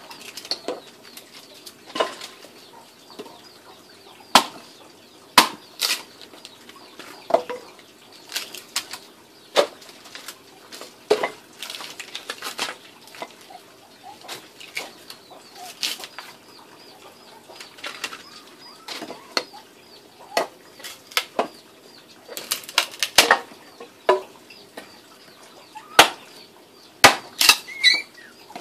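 Machete chopping and splitting firewood logs: sharp, irregular wooden knocks, roughly one a second.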